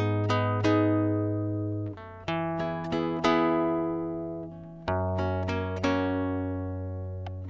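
Background music: plucked, guitar-like notes ringing out and fading one after another over a low bass note that changes every couple of seconds.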